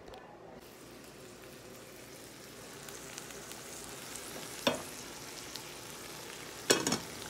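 Shrimp frying in oil in a nonstick skillet, a steady sizzle. Two sharp knocks break through, one about two-thirds of the way in and a louder one near the end.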